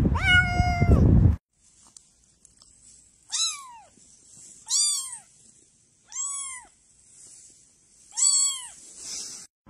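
Grey tabby kitten mewing four times: short, high calls that rise and fall, about a second and a half apart. Before them, a cat gives one long meow over loud rumbling noise that cuts off suddenly about a second and a half in.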